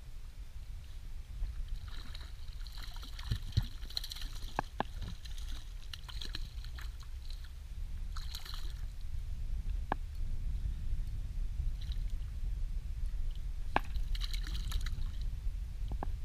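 Hooked rainbow trout splashing at the surface beside a small boat while it is played in and landed, heard as several hissing splashes with scattered knocks. A steady low wind rumble on the microphone runs underneath.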